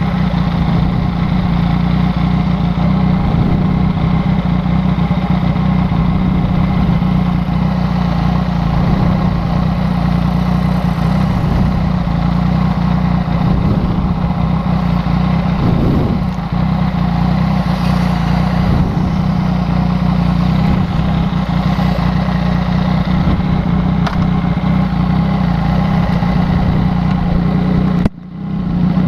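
Yamaha MT-09's three-cylinder engine idling steadily through a replica Akrapovic exhaust, with a brief dropout in the sound near the end.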